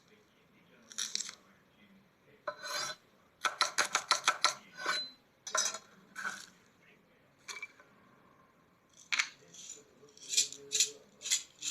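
Kitchen utensils clicking and scraping against dishes in short bursts, with a quick run of about eight clicks about three and a half seconds in.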